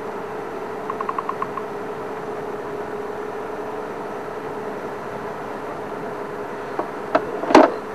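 Game-drive vehicle's engine idling with a steady low hum. About a second in there is a quick run of about six light ticks, and near the end a few sharp knocks, the last one the loudest.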